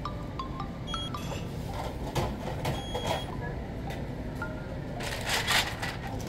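Short electronic beeps and clattering knocks over a steady low background hum.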